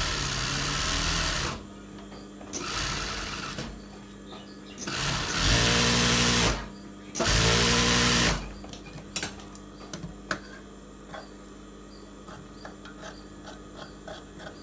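Industrial single-needle sewing machine stitching a shirt collar piece in four short runs, each starting and stopping abruptly, the longest about two seconds. After that, a string of light clicks and snips as the fabric is handled and trimmed with scissors.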